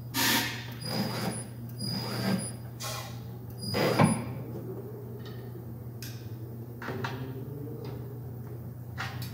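Tire changer machine working a 32-inch tire onto its wheel: a steady low hum with a string of short mechanical bursts, the loudest about four seconds in, then quieter.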